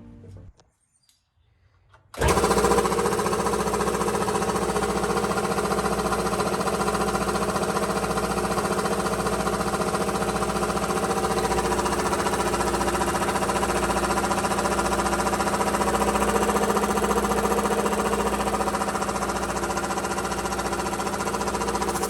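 Belt-driven piston air compressor starting suddenly about two seconds in and running steadily with an even pulsing chug as its electric motor drives the pump.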